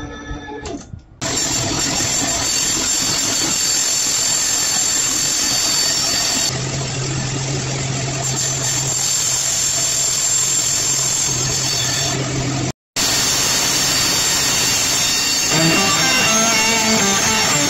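Large industrial bandsaw running and resawing a thick board: a steady dense whir of motor and blade cutting wood. It breaks off for a moment about two-thirds of the way through, and music comes in near the end.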